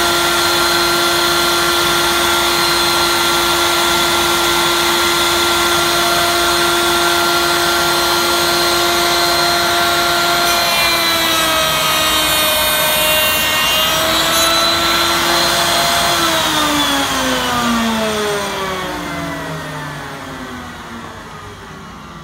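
Table-mounted router running at full speed with a steady whine. About halfway through, its pitch sags and wavers under load, with cutting noise, as the bit cuts a cope across the end of a rail held in the coping sled. Then it is switched off and winds down with a long falling pitch.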